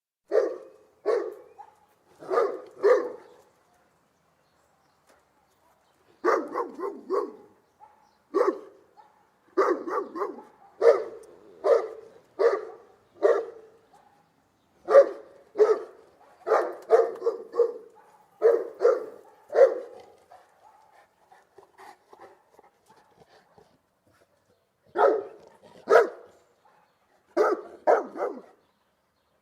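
Saint Bernard barking in short groups of two or three barks. After a few seconds' pause comes a long run of barks, roughly one a second, then a quieter spell and a few more barks near the end.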